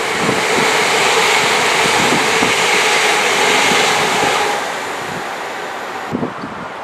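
Chiltern Railways Class 168 diesel multiple unit running away on the main line: a steady rush of wheel and engine noise with a few held tones, fading about four and a half seconds in. Wind buffets the microphone near the end.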